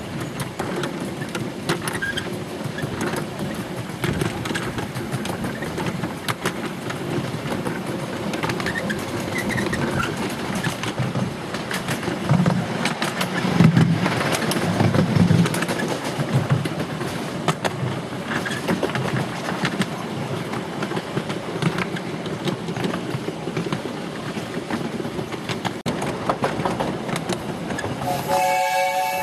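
Steady rattle and clatter of a miniature railway train running along its track, heard from aboard, with a louder low rumble about halfway through. Near the end the train's whistle sounds, several notes at once like a chord.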